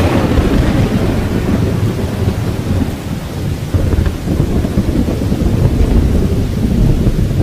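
Thunderstorm: heavy rain with a continuous deep, fluctuating rumble of thunder, following a loud crash that fades away at the very start.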